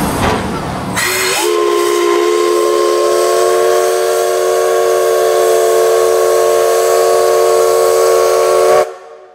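Steam whistle of the C62 2 steam locomotive, sounded as one long blast of about eight seconds: a chord of several notes that rises briefly as it opens about a second in, is held steady, and cuts off sharply near the end. A hiss fills the first second before it.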